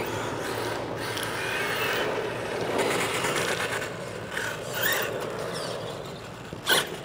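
Electric HPI Savage Flux RC monster truck driving over rough ground: its tyres scrape and crunch, with short rising and falling whines from the brushless motor. A sharp louder sound comes near the end.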